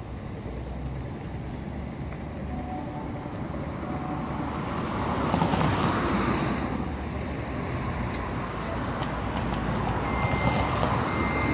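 Sydney Trains Tangara electric train approaching along the platform, a steady rumble that swells about five seconds in. A high steady tone sets in near the end.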